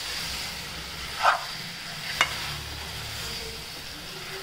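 Marinated chicken sizzling in oil in a non-stick pan with a steady hiss, frying in oil with no water added yet. A metal spatula stirs it, scraping and knocking against the pan twice, loudest about a second in.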